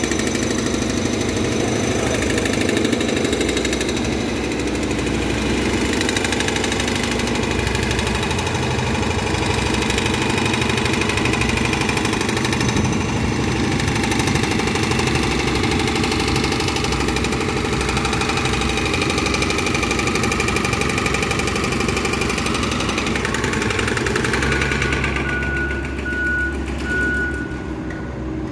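A city transit bus's engine running loudly as the bus pulls away from the curb, mixed with a steady, rapid mechanical clatter from nearby street work. Short repeated high beeps come in near the end.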